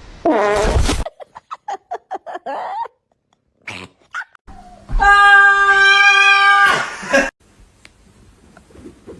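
Cats meowing: a loud cry at the start, a quick run of short meows, then one long, loud, steady yowl lasting about two seconds.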